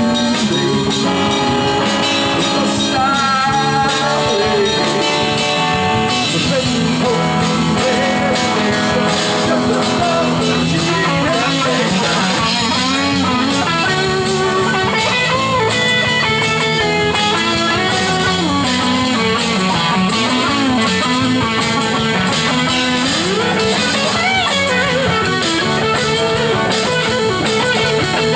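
Live blues-rock band playing an instrumental passage: electric lead guitar, rhythm guitar, bass and drums, with the lead guitar playing lines full of bent, sliding notes from about ten seconds in.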